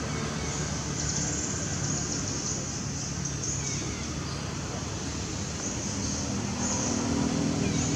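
Steady outdoor background noise: a low rumble like distant traffic, with faint high-pitched buzzing that comes and goes.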